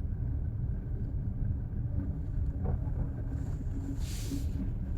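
Steady low road and engine rumble inside a car driving slowly, with a brief hiss about four seconds in.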